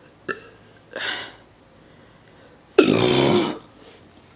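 A woman's single loud burp, about three seconds in, lasting under a second, rough and deep with a low pitched tone through it.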